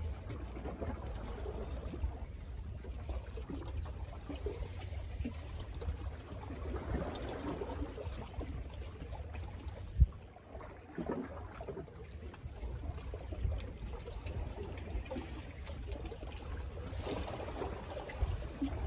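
Small waves lapping and trickling against shore rocks, with wind rumbling on the microphone and one sharp thump about ten seconds in.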